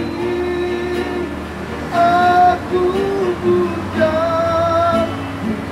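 Acoustic guitar played with a voice singing a slow song, with several long held notes; the longest comes about four seconds in.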